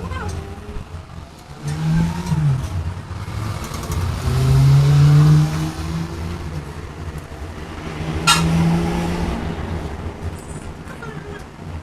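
Vehicle engine running, its pitch rising and falling as it revs, loudest about four to five seconds in, with one sharp click about eight seconds in.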